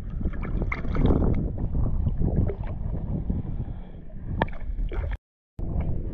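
Wind buffeting the microphone over water lapping and splashing, with a few sharper splashes. The sound drops out briefly a little after five seconds in.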